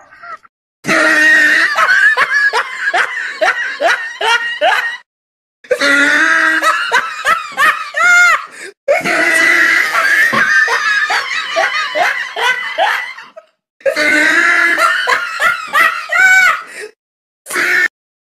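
Laughter sound effect: several long bouts of loud, hearty laughter, broken by short silences, with a brief burst near the end.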